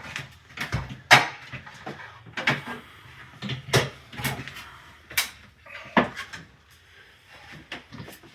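About half a dozen sharp knocks and clacks at irregular intervals, with fainter clicks between, from hard objects being handled and set down. They thin out after about six seconds.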